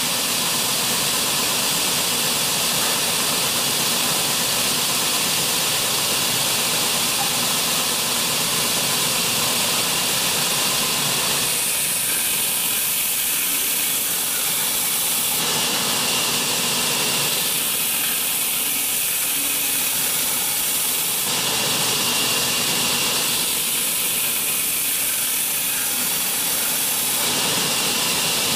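MM2012A double belt sanding machine running, its abrasive belts giving a loud, steady hissing rush. From about eleven seconds in, the sound shifts back and forth in tone every few seconds.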